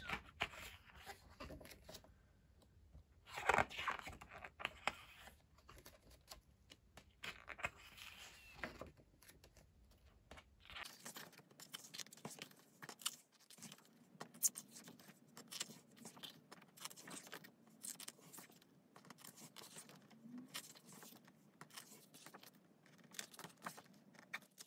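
Faint paper rustling and small clicks as the pages of a K-pop album's photobook are handled and turned.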